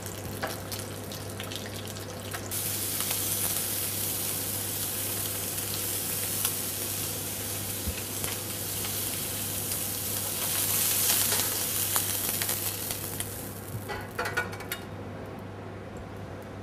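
Duck breast sizzling in hot oil in a nonstick frying pan as it sears, a steady hiss that starts a couple of seconds in and dies away near the end. A few light metal clinks follow as the breast is lifted onto a steel tray.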